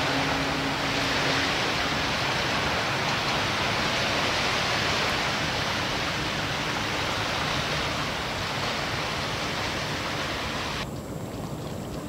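The deep, steady tone of a container ship's whistle dies away about a second and a half in, leaving a loud, even rushing hiss that cuts off suddenly near the end.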